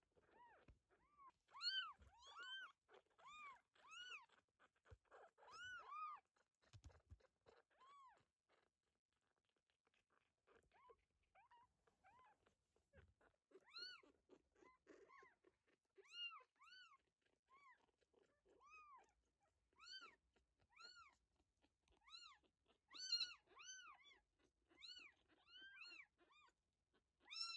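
Very young kittens mewing over and over, thin high cries that each rise and fall in pitch, about two a second, with a short pause about a third of the way through.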